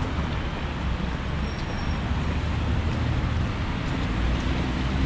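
Steady city road traffic: a continuous rumble of passing cars and engines.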